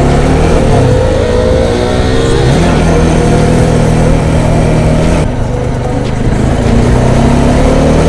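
Bajaj Dominar 400's single-cylinder engine pulling hard as the motorcycle accelerates through the gears, heard from the rider's seat. Its note rises, dips briefly at a gear change about five seconds in, then climbs again, with wind noise underneath.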